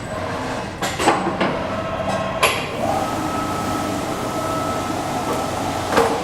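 Schechtl MAB310 CNC sheet-metal folder forming a piece of coping: a few metallic clanks, then a steady motor whine with a thin high tone from about three seconds in while the beam swings, ending in a knock near the end.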